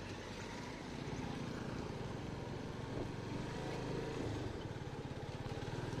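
Motorcycle engine running steadily at low speed, a low, even rumble.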